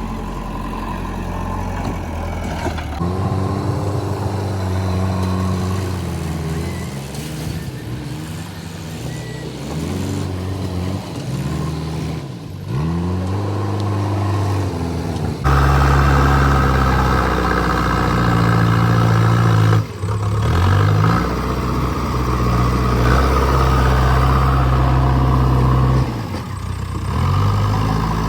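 Heavy diesel engines of earthmoving machinery running under load, their pitch rising and falling again and again as they rev up and settle. The sound changes abruptly twice, and is louder and deeper in the second half.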